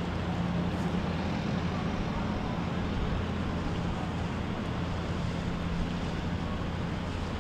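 A boat engine running steadily, a constant low drone, over a steady rush of wind and water noise.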